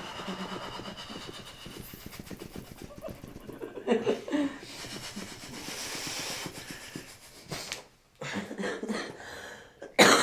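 A person breathing heavily, with a short burst of soft laughter about four seconds in.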